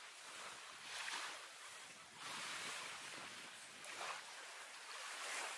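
Small waves lapping and water sloshing in calm shallow sea water: a soft hiss that swells and fades every second or so.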